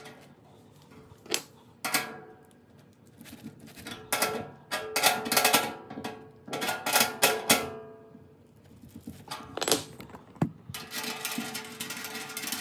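Clicks and light metallic rattles as hex bolts and nuts are handled and fitted into a grill's sheet-metal body, in clusters about four and seven seconds in and again near the end, over quiet background music.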